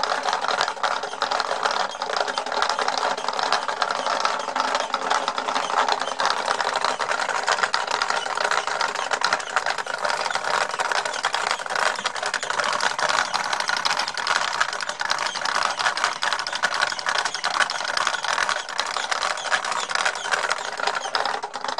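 Home-built foot-treadle wood lathe running at speed, its wooden gears meshing in a dense, continuous clatter of fine clicks.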